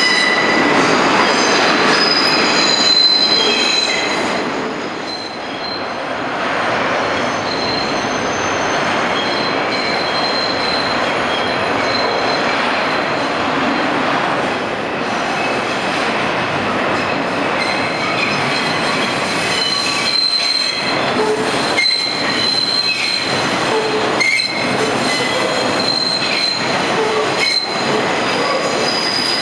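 Subway train's steel wheels squealing steadily as it rounds a very tight curve, over the rumble of the cars on the rails. Several sharp clacks come in the second half.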